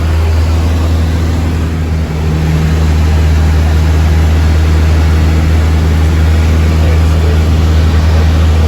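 Cessna 152's four-cylinder Lycoming piston engine and propeller running steadily, a low even hum that grows a little louder about three seconds in.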